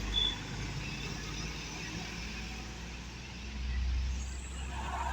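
Motor vehicle passing with a low engine rumble that swells about three and a half seconds in.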